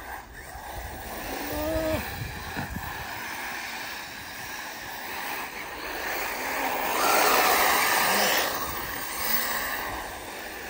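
ARRMA Typhon 6S brushless electric RC buggies racing on loose dirt: a steady rushing noise of tyres and motors, swelling for about a second and a half about seven seconds in.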